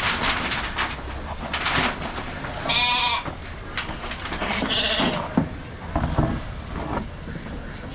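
A sheep bleats: one wavering call about three seconds in, with a shorter high-pitched cry about two seconds later, over scattered rustling noise.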